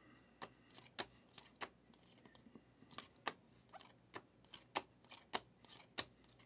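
Trading cards from a 2023 Phoenix football pack being flipped through by hand: faint, irregular flicks and clicks of card stock, about two or three a second.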